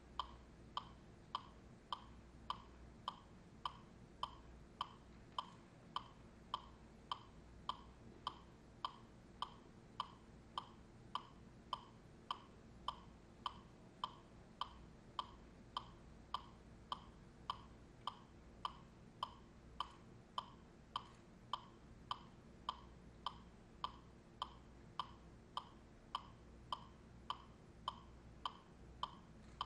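Steady metronome-style ticking: evenly spaced short clicks, a little under two a second, with a bright, slightly pitched ring.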